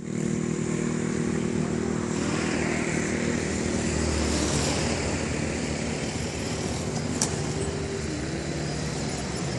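A motor vehicle's engine running steadily at an even pitch.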